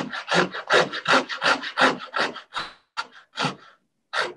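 Fine-toothed coping saw cutting through wooden crown moulding by hand, coping its profile to fit an inside corner: a quick run of rasping back-and-forth strokes, about four or five a second, that stops briefly near the end and starts again.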